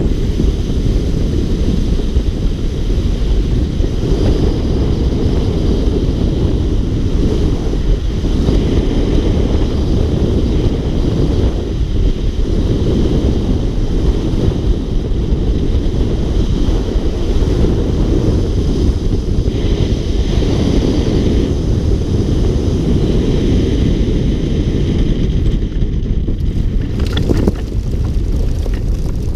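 Heavy wind buffeting the microphone while flying under a powered paraglider wing, a steady low rumble with no engine note heard, the engine having quit.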